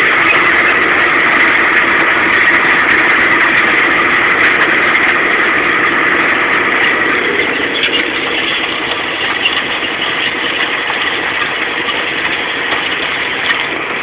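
John Deere 6930 tractor's six-cylinder diesel engine running steadily while ploughing, heard from inside the cab; a little quieter in the second half.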